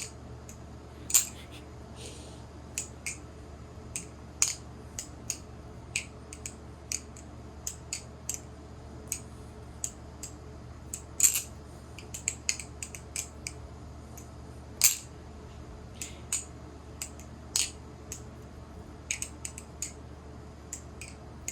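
Balisong (butterfly knife) being flipped: irregular sharp metallic clicks and clacks as the handles swing and strike, several of them louder, over a faint steady low hum.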